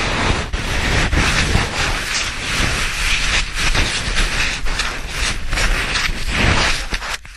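Loud rushing, scraping noise of moving snow and wind buffeting the microphone. It cuts off abruptly near the end.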